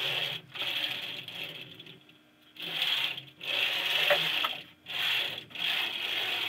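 The gantry and carriage of an MPCNC router are pushed by hand along steel tube rails, their bearings rolling and rattling. The sound comes in repeated strokes, each about a second long, with short pauses between them.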